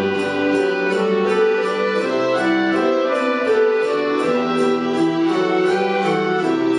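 Youth folk orchestra playing an Irish traditional tune on bagpipe, violins, guitars and other plucked strings, with a steady rhythm.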